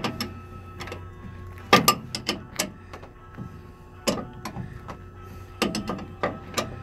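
Irregular sharp clicks and knocks, in small clusters of two to four, over a steady low hum.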